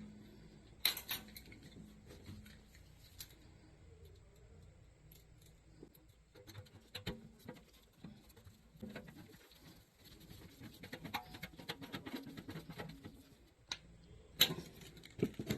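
Scattered light clicks and taps of hands and tools on metal parts, with a sharp knock about a second in and another near the end, as an air-conditioning unit is reassembled after a capacitor replacement.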